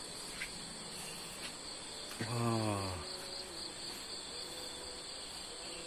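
Insects chirring in a steady, high, even drone. A man's voice makes one short falling sound about two seconds in.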